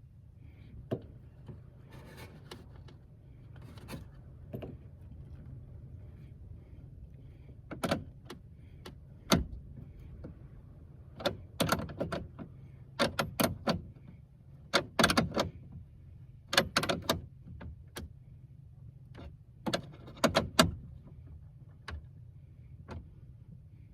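Hand tools clinking and knocking on metal while a wrench is worked on a fitting, in scattered single clicks at first and then in quick clusters, over a steady low hum.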